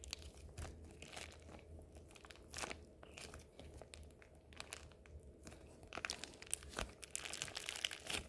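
Faint crinkling of a plastic bag with scattered small crackles and clicks as sticky old slime is handled and pulled out of it.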